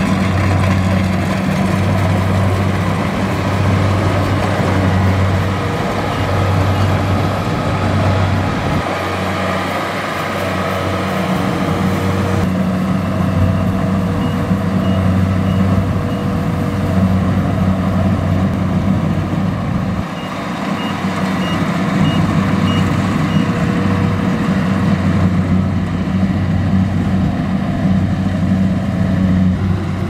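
Kubota DC-70 rice combine harvester's diesel engine running steadily under load while the machine cuts and threshes rice, a low droning hum with mechanical clatter over it. A faint high beeping comes and goes a few times.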